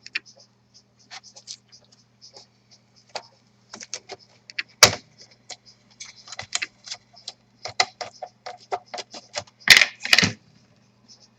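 Irregular small plastic clicks and ticks as the laptop's plastic bottom cover is pried and worked loose from its clips. One sharp louder click comes about five seconds in and a cluster of louder ones near the end, over a faint steady low hum.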